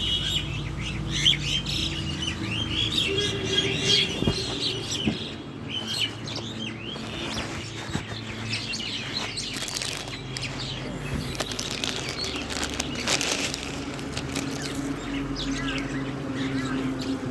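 A small pet bird chirping repeatedly in short high notes and fluttering its wings now and then.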